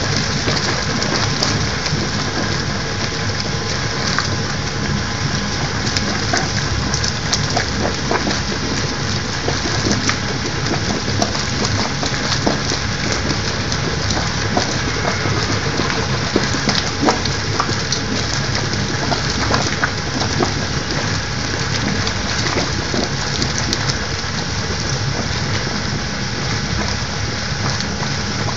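Near-boiling water from an overheated barn hot water heater, above 90 °C, sputtering and bubbling with steam into a plastic tub. It makes a steady hiss full of crackles.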